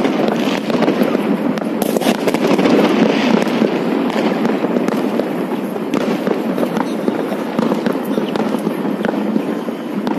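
Fireworks going off in a dense barrage: a continuous crackling and popping of many bursts at once, with no pause.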